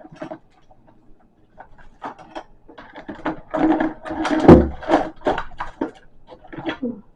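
Irregular clattering and knocking of objects being handled and moved while rummaging for a missing item, with one louder thump about four and a half seconds in.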